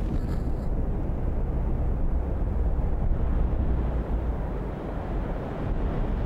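Steady low rumble, strongest in the deep bass, with a fainter hiss above it and no sharp events.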